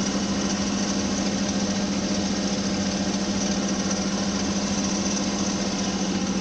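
Daihatsu Mira Avy (L260S) 660 cc three-cylinder engine running steadily, with the gritty, scraping "jari-jari" noise from the engine bay. The fault shows on a cold engine and dies away after about 30 minutes of driving; its cause is not yet known.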